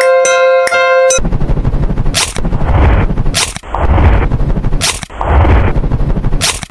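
A loud sound effect of rapid, crackling bangs with a heavy low rumble, swelling three times. It follows a ringing, repeated tone that cuts off about a second in.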